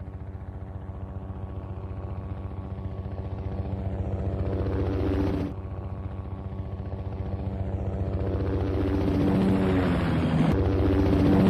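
Helicopter sound effect: rapid, even rotor-blade chop over a steady engine hum, slowly growing louder. It cuts off abruptly about five and a half seconds in and starts again quieter, builds, then jumps louder again near the end.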